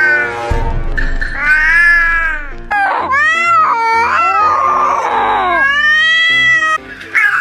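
Cat meowing and yowling: about five drawn-out calls that swoop up and down in pitch, one of them a harsher yowl about five seconds in, over background music.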